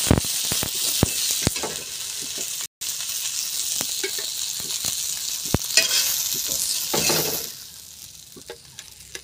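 Masala-coated fish frying in oil on a tawa: a steady sizzle, with sharp clicks and scrapes of a steel spatula turning the pieces on the pan. The sizzle drops away about seven and a half seconds in.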